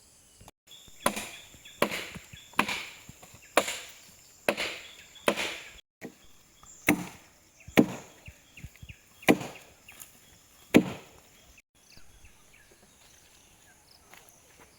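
Wood being chopped with a blade: about a dozen sharp strokes, one roughly every second, that stop about eleven seconds in.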